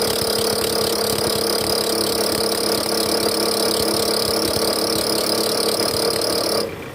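Toyota Alphard's 2AZ-FE 2.4-litre engine held on the throttle at about 1100 rpm in reverse with the AC on, giving a rough growl and a steady high squeal. Both come from the drive-belt tensioner, whose spring has gone weak and shakes under load. The noise cuts off near the end as the throttle is released.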